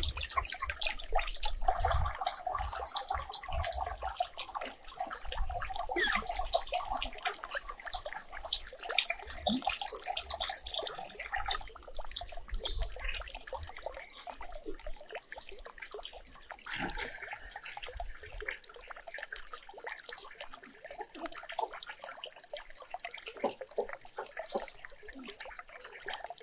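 Irregular splashing and dripping of water, busier in the first half and quieter in the second.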